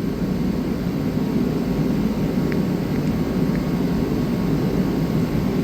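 Steady low mechanical drone of background machinery or ventilation, even throughout, with a couple of faint light ticks.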